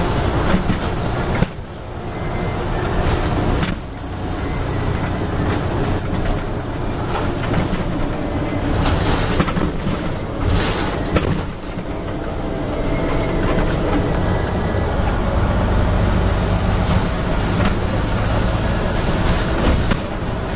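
Scania N94UB Omnidekka double-decker bus under way, heard from inside the lower-deck saloon: the steady drone of its rear-mounted diesel engine with road rumble, and scattered clicks and rattles from the bodywork and fittings. The sound dips briefly twice in the first four seconds, and the low engine rumble grows stronger in the second half.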